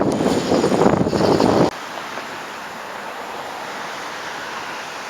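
Wind buffeting the microphone, cutting off suddenly under two seconds in and leaving a steady hiss.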